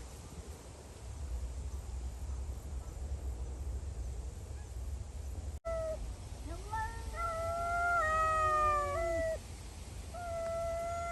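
Cats yowling, starting about halfway in after a low wind-like rumble. Two long, wavering calls at different pitches overlap for several seconds, and another starts near the end. These are the drawn-out caterwauls of cats squaring off against each other.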